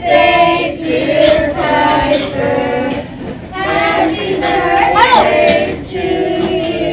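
A group of voices, children's among them, singing a song, moving through a run of held notes.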